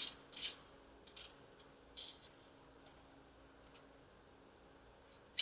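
Light metallic clinks and rattles of hand tools and suspension hardware (bolts, washers and nuts) being handled: a handful of brief, scattered clicks over a faint steady hum.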